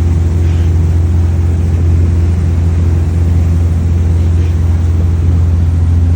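Boat engine running steadily with a loud, low, even hum.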